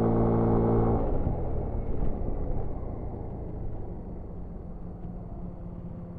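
Yamaha NMAX 125 scooter's 125cc single-cylinder engine heard while riding: it pulls under throttle for about the first second, then the note drops off suddenly and fades as the scooter slows down, leaving a low, quieter running sound with road noise.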